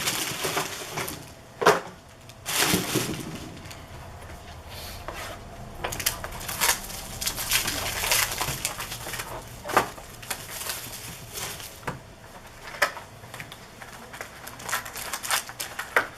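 Trading-card packs being handled and opened: crinkling and tearing of pack wrappers, with irregular rustles and sharp clicks of cards and packaging.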